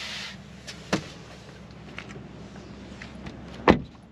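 Polestar 2 door shut with one heavy thud near the end, after a sharp click about a second in and brief rustling at the start.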